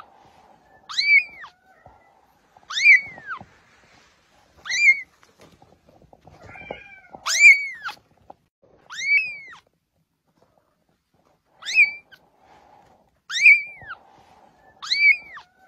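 A young kitten mewing over and over: about eight short, high-pitched mews, each rising and then falling in pitch, roughly every one and a half to two seconds.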